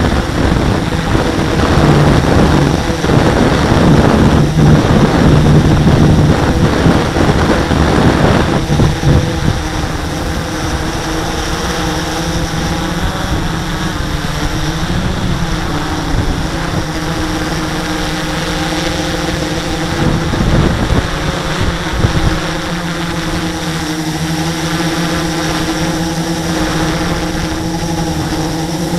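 Electric motors and propellers of a radio-controlled camera drone, heard from its onboard camera: a steady whine of several tones. Wind buffets the microphone heavily for the first nine seconds or so, then the hum goes on steadier and quieter, its pitch wavering slightly as the drone comes down low.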